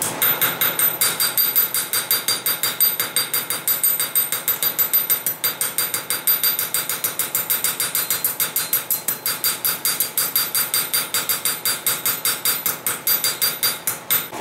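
Rapid, even hammering of a small hammer on a thin steel sheet cut-out lying on an anvil, about five blows a second. Each blow rings briefly and metallically, texturing the steel. The hammering pauses for a moment about five seconds in.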